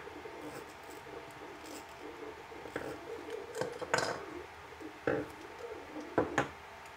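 Small clicks and light knocks of metal and plastic as an AnkerMake M5 hot end is handled: the aluminium heat block is pulled out of a plastic service block and worked with a quarter-inch deep socket on its nozzle. A handful of sharp taps come in the second half.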